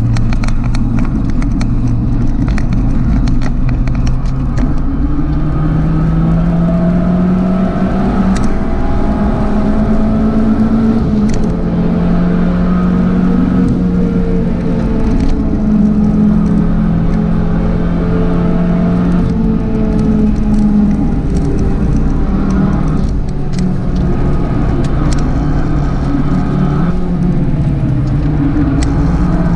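Turbocharged four-cylinder engine of a tuned Abarth 595 running hard at speed. Its pitch climbs and drops slowly over several seconds at a time, with scattered sharp clicks.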